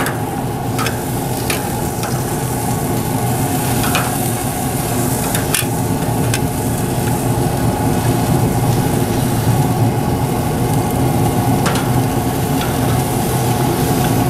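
Pellet grill's fan running with a steady hum under the sizzle of chicken wings cooking on the grate, with a few sharp clicks of tongs against the grate as the wings are turned.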